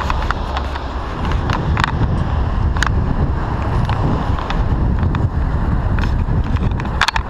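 Wind rumbling on the microphone of a moving bicycle, with scattered clicks and rattles from the bike, and a quick run of them near the end.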